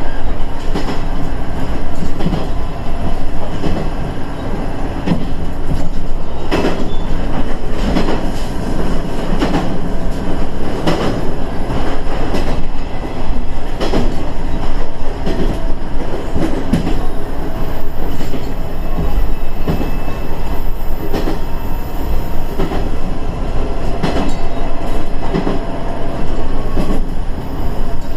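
KiHa 110 series diesel railcar running along the line, heard from inside the car: a steady rumble of engine and running gear with irregular sharp knocks as the wheels pass over rail joints.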